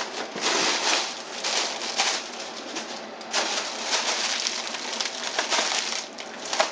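Cardboard box and paper packing rustling and scraping in uneven surges, as a shoe box is worked out of the tight shipping box it is packed in.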